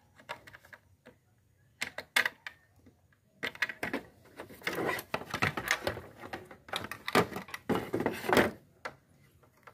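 Plastic clicks and rattling as hands handle a motorcycle headlight bulb, its socket and wiring in the opened plastic headlight housing. A few separate clicks come first, then a few seconds of busy clattering.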